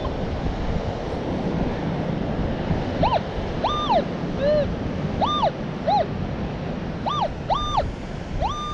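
Metal detector in pinpoint mode sounding over a buried target: from about three seconds in, a string of short tones, each rising and falling in pitch as the coil passes over the spot. Behind them is a steady hiss of surf and wind.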